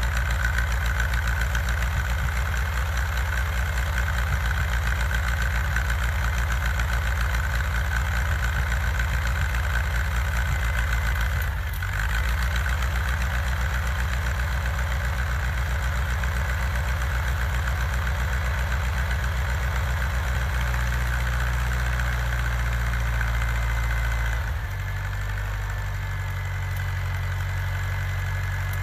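Farmall tractor's four-cylinder engine idling steadily in the cold. Its note dips briefly near the middle, then shifts twice and settles a little lower and quieter near the end.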